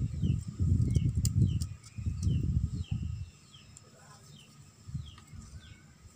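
Muffled knocking and rustling of hands working on an angle grinder while its carbon brushes are fitted, heaviest in the first three seconds. Behind it, a bird repeats a short falling chirp about every half-second.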